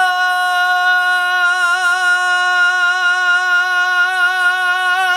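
A lone singing voice, unaccompanied, holding one long steady note with a light vibrato: the final held note of the song.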